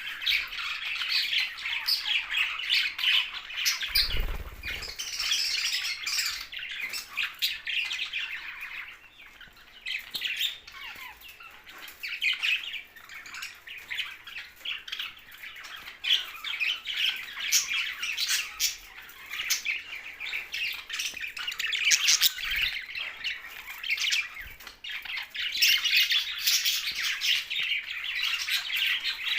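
Several budgerigars chattering at once: rapid high chirps, warbles and squawks, easing off for a few seconds about a third of the way through. A brief low thump about four seconds in.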